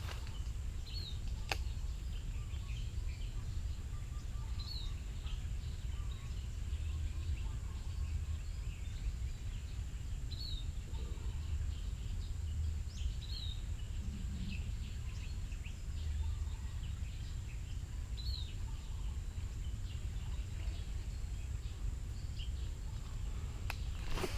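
Outdoor pond-side ambience: a steady low rumble and a thin steady high whine, with a bird giving short high chirps every few seconds.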